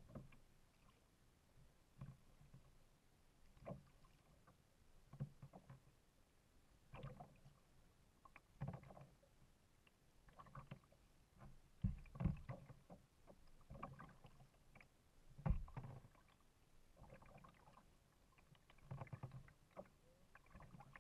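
Kayak paddle strokes: a quiet splash and drip of the blade in the water about every one and a half to two seconds, with a couple of louder low thumps midway.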